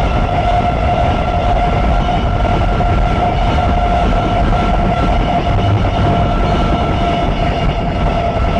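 A steady, unbroken low rumble with a constant high whine held over it, unchanging in pitch and level.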